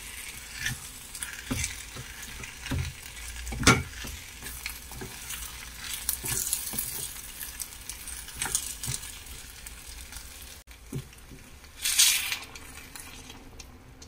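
Kimchi, pork and onion sizzling in a hot black clay pot as a wooden spatula stirs and scrapes them, with repeated knocks of the spatula against the pot, one loudest about four seconds in. Near the end comes a short loud hiss as liquid is poured into the hot pot.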